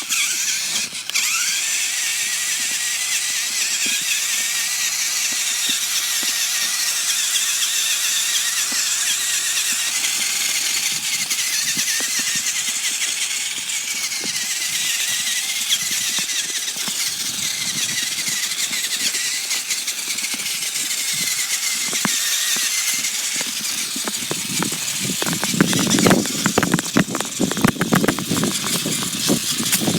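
RC car's motor whining steadily as the car is driven on ice; in the last few seconds a run of rattling clicks joins it.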